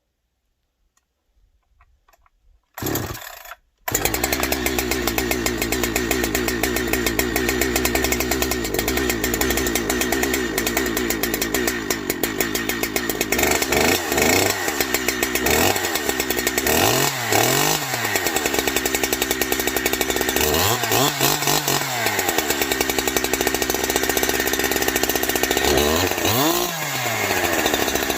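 Farmertec Holzfforma G372XP two-stroke chainsaw on its first, cold start: a short burst about three seconds in, then it catches and runs steadily, revved up and back down four times in the second half.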